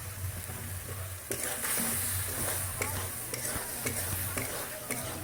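Mushrooms sizzling as they fry in a pan, stirred with a utensil that clicks against the pan every so often. The sizzle swells about a second in.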